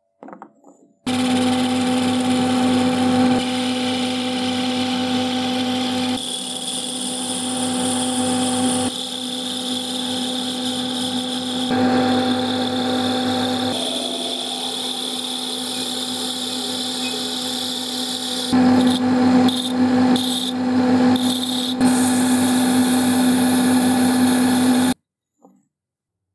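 Electric power tool motor running steadily with a strong even hum. The hum jumps abruptly in level and tone every few seconds, breaks off briefly a few times about three quarters through, and cuts off sharply near the end.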